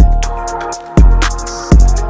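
Background music: an electronic track with a deep kick drum hitting about every half to one second, quick ticking percussion, and sustained synth notes.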